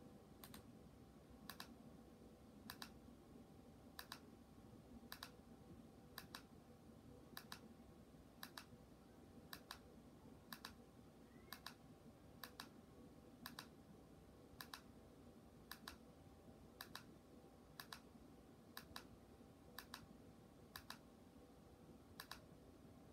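Faint, even clicks of a TV remote control's button pressed about once a second, over a low steady room hum.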